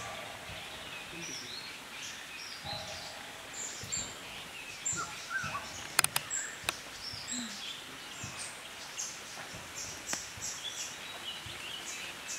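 Many short, high bird chirps and whistles from several directions over a steady background hiss, with a few sharp clicks about six seconds in.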